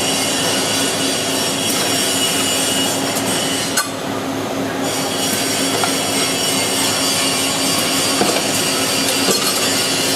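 Onodani TPM-30 tyre packing machine running: a steady mechanical hum overlaid with high, steady whining and squealing tones, and a single sharp knock about four seconds in.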